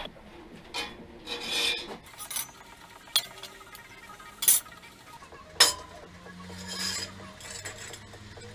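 Pieces of cut steel sheet scraping and clinking against a steel worktable as they are handled: several short scrapes and three sharp metallic clinks.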